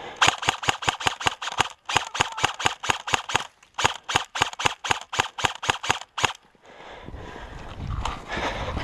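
Airsoft rifle firing rapid strings of shots, about seven a second, in three bursts with short pauses, stopping a little after six seconds in.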